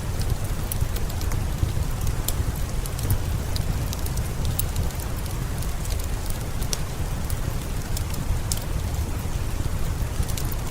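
Steady rain falling, with a deep, even rush under it and scattered sharp crackles of a fireplace fire.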